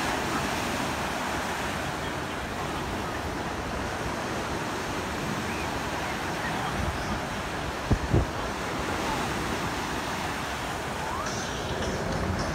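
Small lake waves washing and breaking on a sandy beach, a steady surf noise mixed with wind buffeting the microphone. One short thump comes about two-thirds of the way through.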